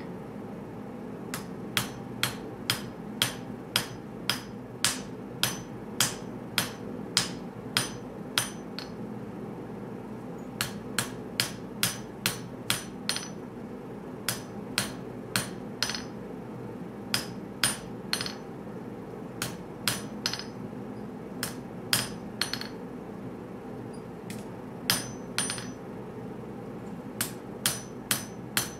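Hand forging hammer striking a red-hot pattern-welded Damascus steel blade on the anvil, in runs of sharp ringing blows about two a second with short pauses between runs. A steady low hum runs underneath.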